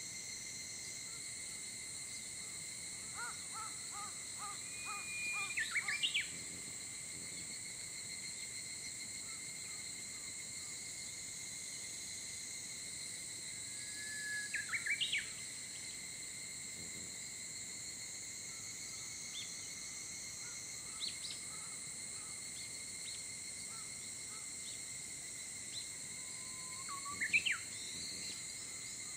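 Steady high-pitched insect chorus, with a bird singing three phrases about ten seconds apart, each a long held whistle that breaks into a quick run of rising notes.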